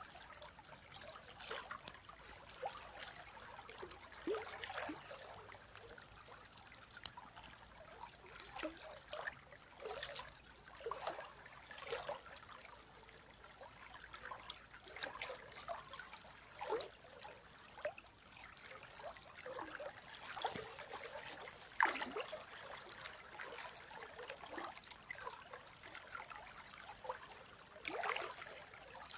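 River water flowing and trickling, with many small irregular splashes throughout.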